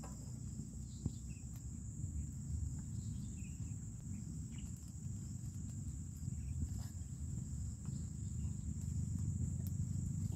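Steady high-pitched insect chirring over a low rumble, with a few faint light clicks.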